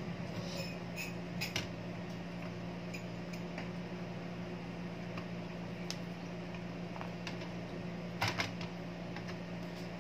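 Scattered light clicks and clinks of a DVR circuit board and its SATA cable being handled and set down on the metal chassis: several in the first second and a half, one near the middle, a pair near the end. A steady low hum runs underneath.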